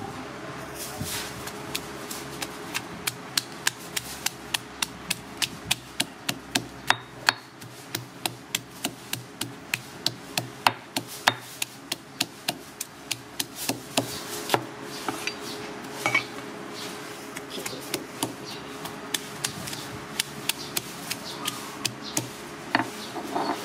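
Stone pestle pounding lemongrass, shallots and root aromatics in a granite mortar, a steady run of sharp knocks roughly two to three a second as a Thai curry paste is crushed.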